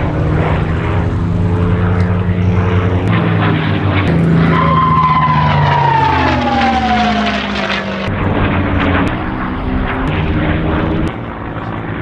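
P-51D Mustang's Packard Merlin V-12 engine running at high power in a string of airshow flybys. In the middle one passes close, its engine note and a high whine falling steadily in pitch as it goes by.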